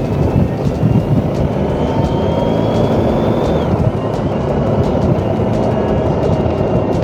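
Motorcycle engine pulling with the revs rising slowly for about three and a half seconds, then the pitch drops suddenly and holds steady. Heavy wind rush on the microphone runs under it.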